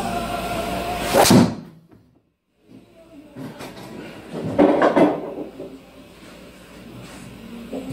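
Driver striking a golf ball: one loud, sharp hit about a second in. A few more loud knocks follow around the middle.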